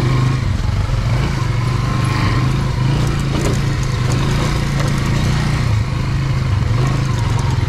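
Dirt bike engine running steadily in a low gear at low speed over a rough trail, its pitch wavering slightly with the throttle, with small clatters from the terrain.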